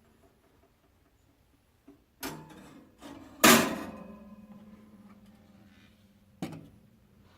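Three sudden knocks from things handled at a workbench. The loud middle one is a clank that rings on for about three seconds.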